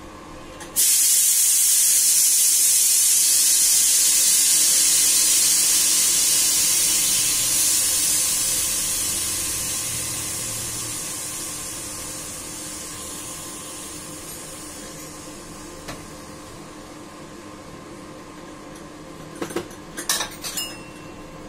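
Pressure cooker venting steam in a quick pressure release after cooking, with its weight lifted by hand: a loud hiss starts suddenly about a second in, holds steady, then fades away gradually as the pressure drops. Near the end come a few sharp metal clicks as the cooker is handled.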